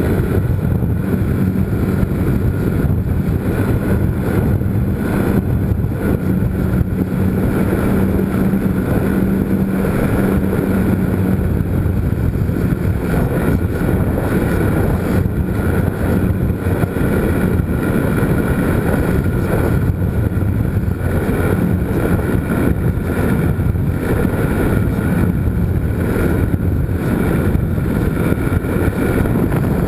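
The electric motor and propeller of a GWS Slow Stick RC airplane run steadily in flight, heard through the camera mounted on the plane as a loud, steady buzzing hum with air rushing over the microphone.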